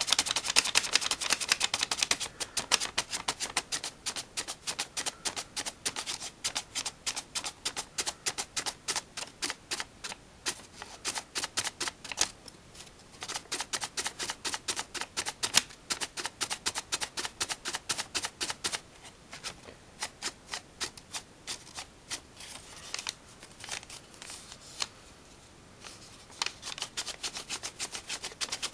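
Folded paper of an origami flapping bird crackling and clicking in quick, even strokes, several a second, as its wings are flapped by working the tail, with a few short pauses.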